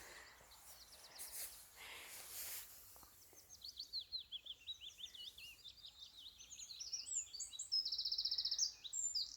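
A small songbird singing a fast, high, jumbled song, breaking into rapid trills near the end, after a few seconds of faint rustle.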